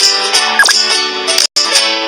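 Background music with quick plucked notes and light percussion ticks, cutting out for an instant about one and a half seconds in.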